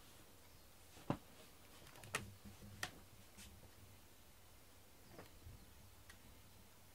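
Light clicks from a cat walking across a hard surface: three sharp ones about one, two and three seconds in, then a couple of fainter ones, against near silence.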